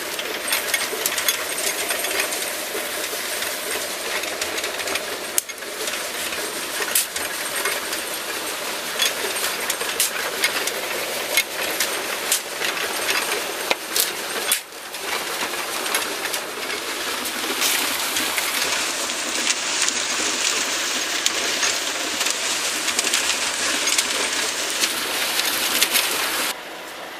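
Teagle Tipmix PTO-driven cement mixer turning, its drum churning a gritty, clattering run of clicks and rattles from the mix tumbling inside. The sound drops away sharply near the end.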